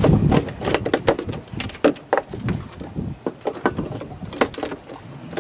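Irregular metallic clinks and rattles, with a few short high ringing clinks, as a shaker siphon hose is handled and pushed into a fuel tank's filler neck.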